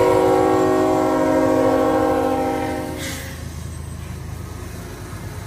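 Union Pacific diesel locomotive's air horn sounding a steady several-note chord as the lead unit passes, cutting off about three seconds in. The low rumble of the passing locomotives' diesel engines continues underneath.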